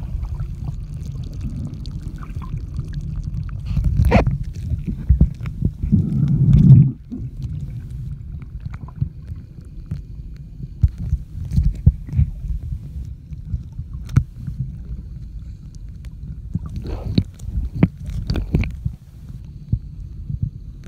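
Muffled underwater water noise heard through a submerged phone: a steady low rumble with scattered knocks and clicks, and a louder surge about six to seven seconds in.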